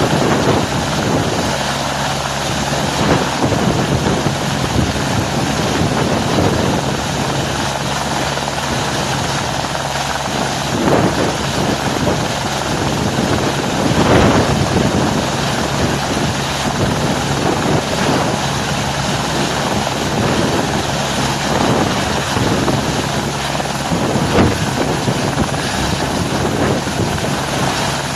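Helicopter running steadily and loud, its rotor and engine making a continuous dense noise with a steady low hum, swelling briefly now and then.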